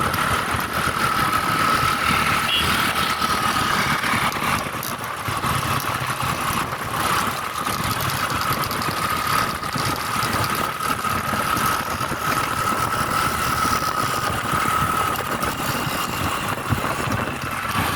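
Steady engine and road noise of a moving vehicle on a drive, with a thin steady whine running through it.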